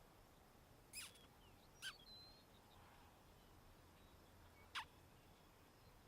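Near-quiet outdoor ambience with three short, sharp bird calls, each dropping in pitch: one about a second in, one just before two seconds, one near five seconds. Faint chirps come in between.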